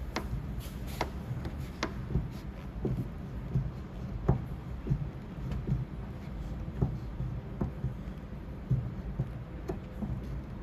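Light, sharp taps and clicks of paintless dent repair tools on a car door panel, irregular at about one or two a second, a few of them louder, over a steady low hum.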